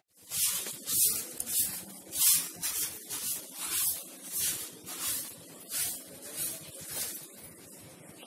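A broom sweeping a concrete floor strewn with wet dirt and neem leaves: brisk swishing strokes, about two a second.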